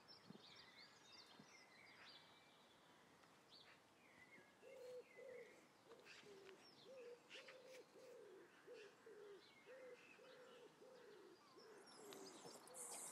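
Faint outdoor birdsong. A pigeon coos in a run of low repeated notes, about two a second, through the second half, and small birds chirp higher up in the first half.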